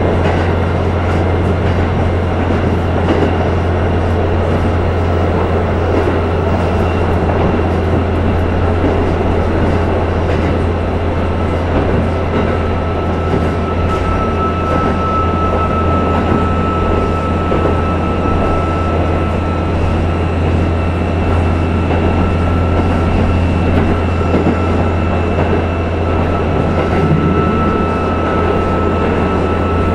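KiHa 11 diesel railcar under way, heard from inside the passenger cabin: a steady low engine drone with wheel-on-rail running noise. A thin steady high tone joins about twelve seconds in.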